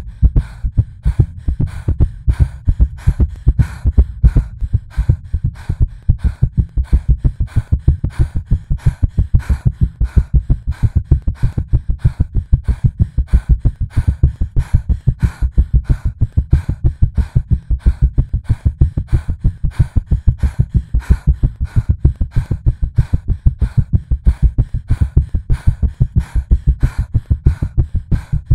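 Artificially created heartbeat sound racing fast, with low thumps at about three beats a second (around 180 bpm), meant as the palpitations of an anxious heart.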